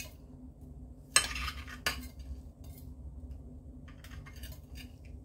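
Kitchen knife slicing through a pan-fried egg sandwich on a ceramic plate. The blade scrapes and knocks against the plate, most loudly just over a second in and again shortly after, with a few faint ticks later.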